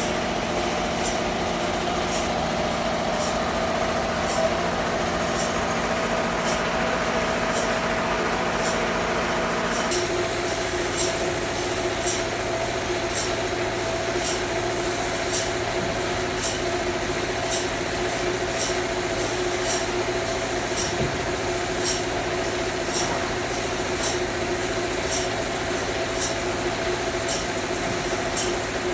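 Sawmill machinery running steadily, with a regular high ticking about one and a half times a second. The hum shifts in pitch about ten seconds in.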